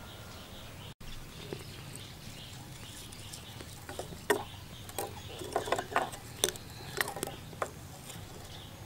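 Small dry twigs crackling and clicking as they are lit and laid across the grate of a clay charcoal stove. About ten sharp cracks come in an irregular run from about four seconds in.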